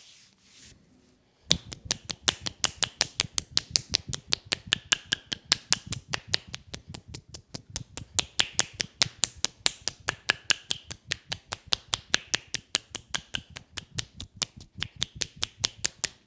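Rapid percussive massage strokes, hands slapping and tapping an oiled leg in an even rhythm of about six strikes a second. They start about a second and a half in and stop abruptly near the end.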